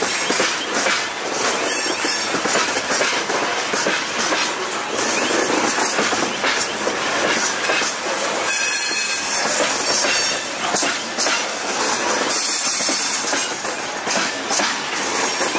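Freight wagons rolling past on steel rails: a steady clatter of wheels over rail joints, with thin high wheel squeal coming and going.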